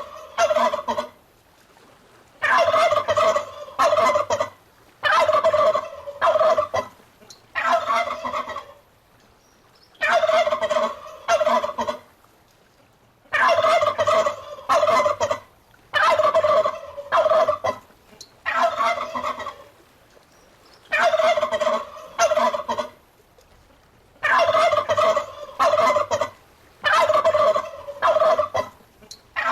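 Turkey gobbling again and again. Each rattling gobble lasts about a second, with short pauses between, and a few longer breaks.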